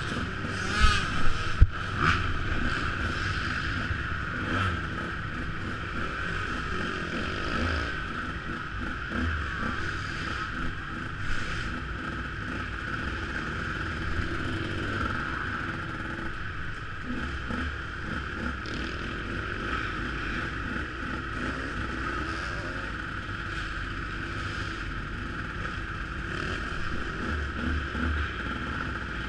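Motocross bike engine running steadily at idle, with a few sharp knocks in the first two seconds.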